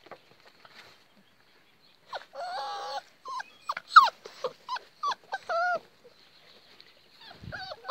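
Presa Canario puppies whining and yelping in play: one drawn-out whine a little over two seconds in, then a quick run of short, high yips that bend in pitch, the sharpest about four seconds in.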